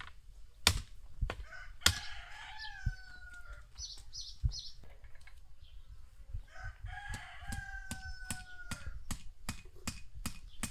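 A rooster crowing twice, each crow one long call that falls in pitch at its end; the first comes about two seconds in and the second near seven seconds. Sharp knocks sound throughout, the loudest two in the first two seconds.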